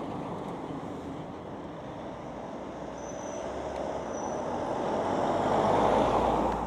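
Outdoor road traffic with a vehicle passing close by, growing louder to a peak about six seconds in and then falling away sharply.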